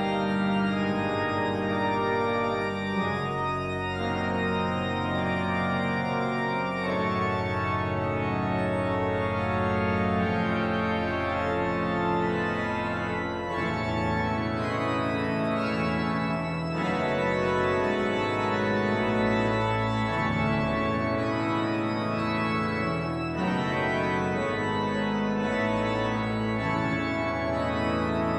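Church organ playing a sustained piece in full chords over a deep bass line, the harmonies changing every second or two.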